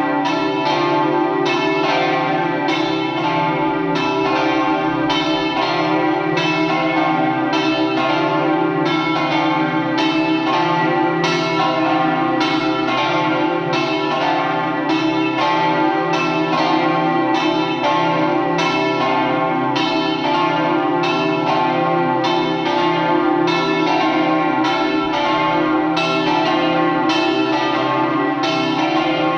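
Several church bells swinging in a tower belfry, ringing together in a continuous peal of overlapping strokes: the festive noon peal.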